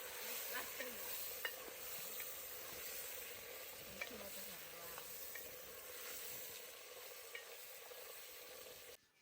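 Goat fat sizzling as it fries down in a pot into cooking oil, with scattered small pops and clicks; the sound cuts off suddenly near the end.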